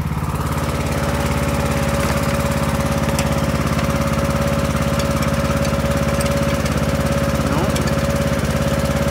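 Riding lawn mower's engine running steadily, with a steady high whine above the engine's low drone.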